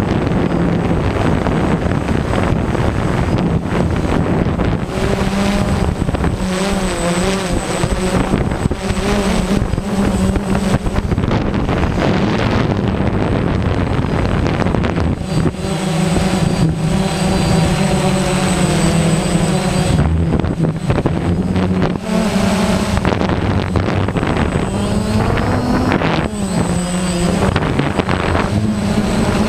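Quadcopter drone's electric motors and propellers whirring loudly, heard from a camera mounted on the drone itself, with the hum wavering up and down in pitch as the motors change speed.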